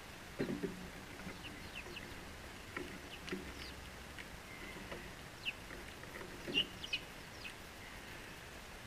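House sparrows chirping in short, scattered notes, with a few soft thumps close by, the loudest about half a second in and again around six and a half seconds in.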